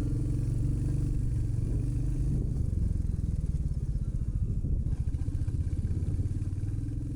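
Motorcycle engine running steadily, a fast even pulsing beat.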